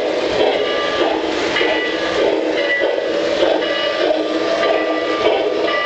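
Lionel O-gauge model train running on three-rail track: a steady metallic rolling noise of wheels on rail, with short high squeaks coming and going.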